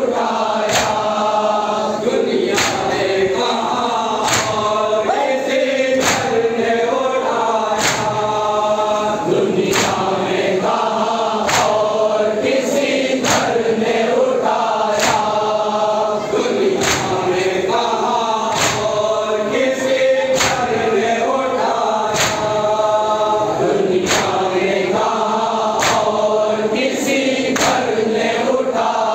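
A crowd of men chanting a nauha, a Shia mourning lament, in unison, led by reciters at a microphone. Open-hand chest-beating (matam) gives a sharp slap in time with the chant, about once a second.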